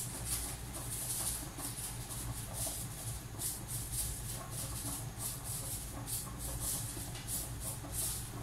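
A handheld seasoning shaker shaken over a pot, its granules rattling in quick, even shakes about twice a second.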